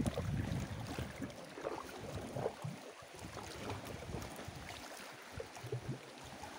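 Water splashing and lapping against a small outrigger canoe's hull and bamboo float as it moves, with a few faint knocks.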